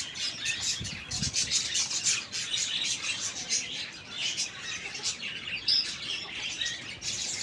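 Many small birds chirping and twittering at once in short, overlapping high calls, with no pause.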